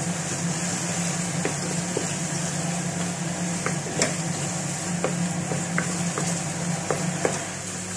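Chicken, onion and chilies frying in a pot while a wooden spatula stirs them, tapping against the pan about a dozen times, over a steady low hum.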